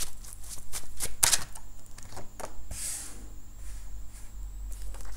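Tarot deck shuffled by hand: a fast run of sharp card clicks for about a second and a half, then sparser, softer card handling as cards are laid on the table.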